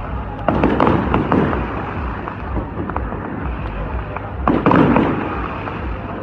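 Aerial fireworks going off, with sharp bangs and crackles and two loud volleys of bursts, about half a second in and about four and a half seconds in.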